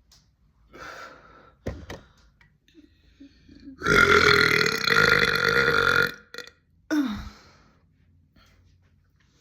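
A person's long, loud, deep burp lasting about two seconds, starting about four seconds in, followed a second later by a short burp that drops in pitch.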